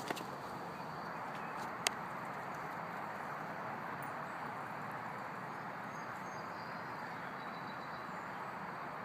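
Steady outdoor background noise, with two sharp clicks, one at the start and one about two seconds in, and faint short high chirps in the second half.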